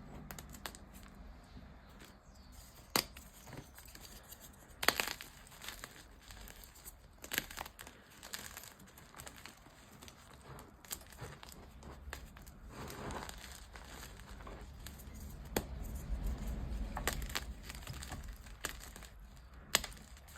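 Dyed gym chalk being crunched and crumbled, with soft powdery crumbling broken by sharp crisp cracks at irregular intervals.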